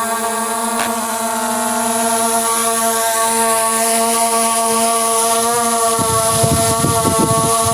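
Skydio 2 quadcopter's propellers buzzing steadily in flight, the pitch shifting slightly as it holds position. Wind gusts rumble on the microphone near the end.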